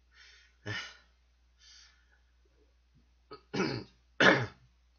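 A man coughing and clearing his throat in short separate bursts while eating extremely spicy fire-chicken noodles, the spice catching in his throat; two loud coughs come close together near the end, the last the loudest.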